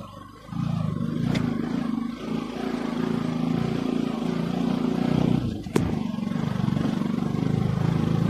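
Motorcycle engine running on a rough trail, its note wavering as the throttle changes, with one sharp click about six seconds in.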